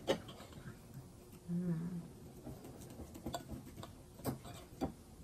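Light scattered clicks and taps of eating at a table: cutlery, plate and mouth sounds, several spread irregularly. A short hummed 'mm' comes about a second and a half in.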